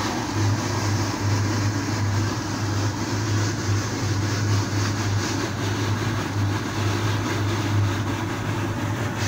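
Engine of a drain-jetting machine running steadily: a low hum that swells and dips, with a hiss over it.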